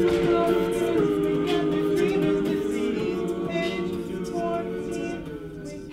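Men's a cappella group singing, holding steady low chords under shorter higher vocal lines, fading out near the end.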